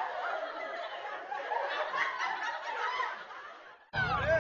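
A group of people laughing and talking over one another. The sound fades out near the end and then cuts off abruptly.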